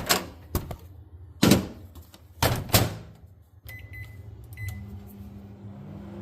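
Microwave oven being started: a few clunks, then several short keypad beeps, then the oven running with a steady low hum from about five seconds in.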